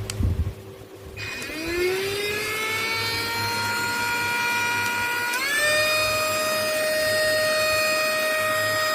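Mini cordless handheld vacuum cleaner switched on with a click: its motor spins up into a steady high whine, then about five seconds in steps up to a higher, slightly louder pitch and holds there.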